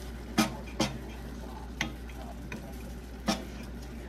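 A wooden spatula stirring a stir-fry of pork, shrimp and vegetables in a stainless steel pan, with five sharp knocks and scrapes against the metal spaced irregularly over a faint, steady frying sizzle.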